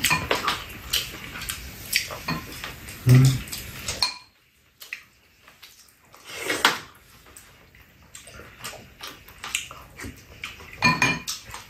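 Chopsticks clicking and tapping against bowls and a frying pan, with mouth noises from people eating braised chicken.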